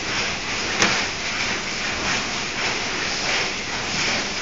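Factory floor noise: a steady hiss with faint irregular clatter, and one sharp click about a second in.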